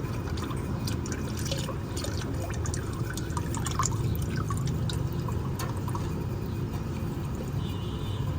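Engine oil running in a steady stream, with many small drips and splashes throughout.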